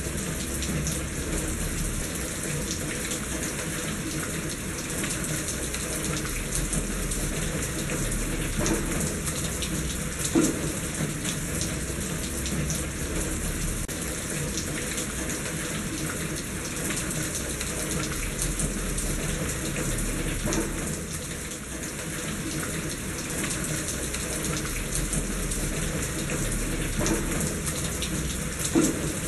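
Steady rain with water running and splashing in a gutter; a few louder splashes stand out.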